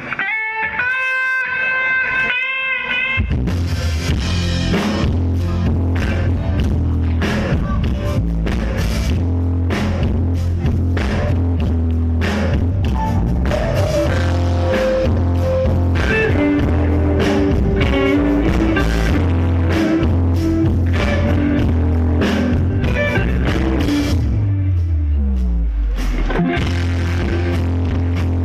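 Live rock band playing: held electric guitar notes alone at first, then drums and bass come in about three seconds in and the full band plays on, with a falling bass slide near the end.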